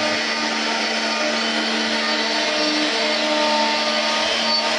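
CNC router's high-speed spindle running and cutting into wood: a steady whine over a rush of noise, its tones shifting slightly in pitch as the bit's load changes.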